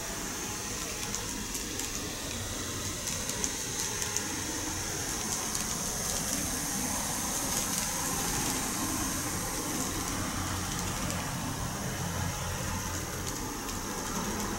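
KATO N-gauge model electric train running along the track: its small motor gives a steady high whine over a low hum, with a few light clicks about three to four seconds in.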